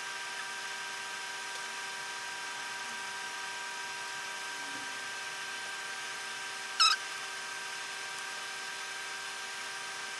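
Steady electrical hum made of several fixed tones. About seven seconds in comes one short, high squeak, the loudest sound here.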